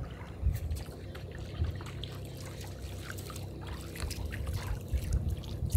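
Small waves lapping and trickling against the hull of a boat drifting on calm sea, a patter of small splashes over a steady low rumble.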